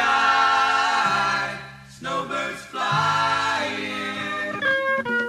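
Recorded a cappella group singing: several voices holding chords in close harmony, fading briefly about two seconds in before a new chord.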